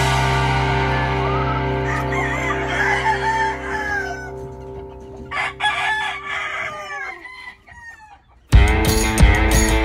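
Gamefowl rooster crowing and clucking over the fading, held last chord of rock guitar music. The music starts up again loudly near the end.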